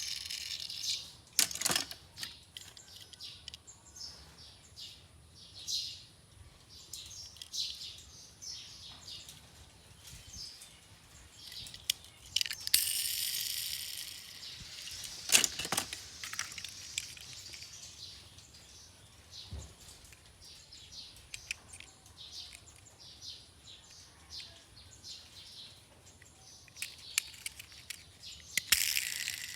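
Small diecast toy cars being handled: scattered light clicking and rattling of small metal and plastic parts, with a sharp knock about a second and a half in and another about fifteen seconds in.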